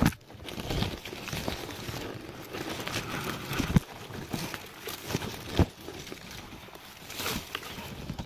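Handling noise of a camera being moved and set down among dry leaves and grass: crackling rustle with scattered clicks and two sharper knocks around the middle.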